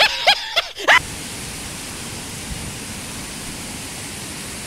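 A person laughing for about a second, cut off abruptly, followed by a steady, even rushing noise.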